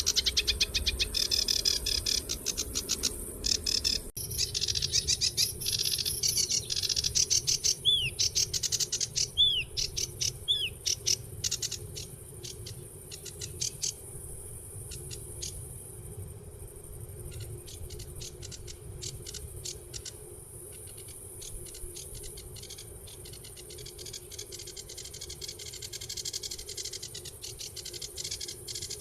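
Birds chirping in fast runs of short high notes, busiest in the first dozen seconds and sparser after. Three brief arched whistles come about eight to eleven seconds in.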